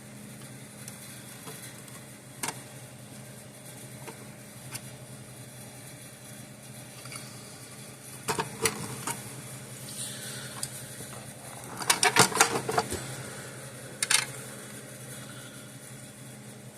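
Scattered clicks and taps of hands working on a fence energizer's parts and wiring, with a quick run of clicks about twelve seconds in, over a steady low hum.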